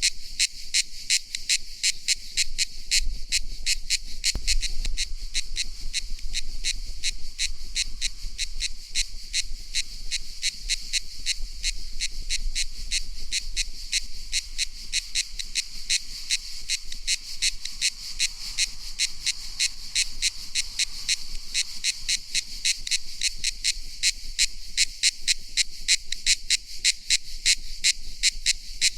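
Cicada singing: a shrill, even buzz pulsing several times a second without a break.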